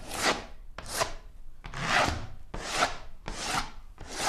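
A hand painting tool dragged across a wet-painted wall in repeated strokes: about six swishing scrapes, a little under a second apart.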